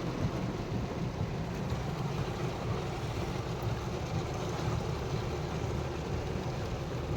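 Steady low rumble of a car in slow traffic, heard from inside the taxi's cabin.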